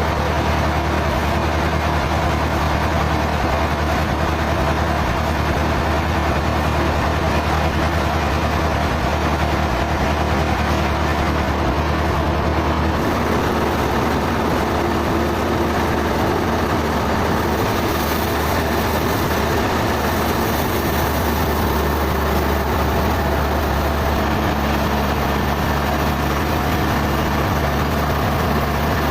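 A heavy engine running steadily, the sawmill's machinery. A brighter hiss comes in about 18 seconds in.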